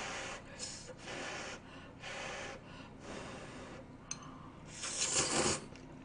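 A person slurping stir-fried ramyeon noodles from chopsticks: a series of short sucking slurps about once a second, then a longer, louder slurp near the end.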